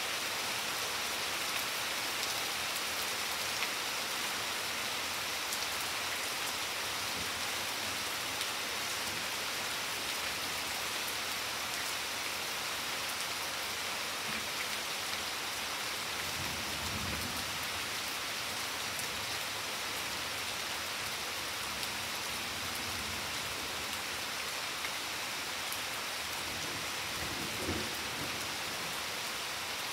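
Steady rain falling on a garden and wet flagstone patio, with low rumbles of thunder about halfway through and again near the end.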